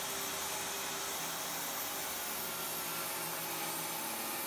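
DeWalt jobsite table saw running steadily, blade spinning, as the tapering-jig sled is fed toward it for a test cut.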